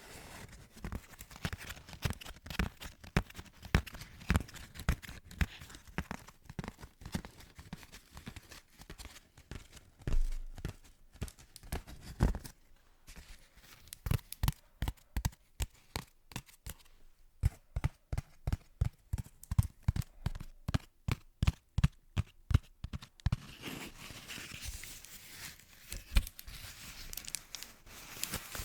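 Close-miked ASMR trigger sounds: short crisp clicks and crackles. There is a quick even run of taps in the middle, then a denser crinkly rustle near the end.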